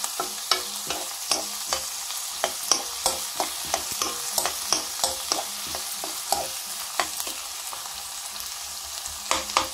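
Chopped onions and tomato sizzling in hot oil in a pan, being fried down toward a pulp, while a spoon stirs them with irregular scrapes and taps against the pan. The stirring eases for a second or so near the end, leaving mostly the sizzle, then picks up again.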